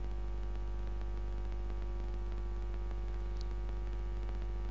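Steady electrical hum with a faint buzz, unchanging throughout.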